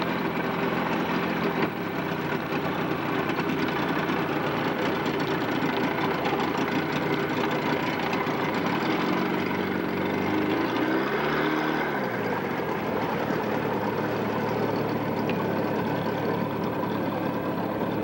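A boat's engine idling steadily under a broad hiss, its pitch rising briefly and falling back about ten to twelve seconds in as the throttle is eased up and down.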